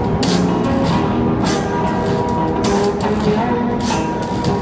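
Acoustic guitar and washboard playing an upbeat folk-blues tune, the washboard scraped and tapped in a steady beat with small cymbals.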